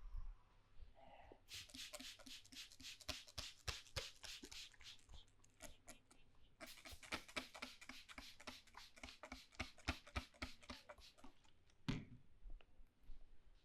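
Hands tapping rapidly and rhythmically on a head during a head massage, about five light strikes a second, in two runs of several seconds with a short break between them.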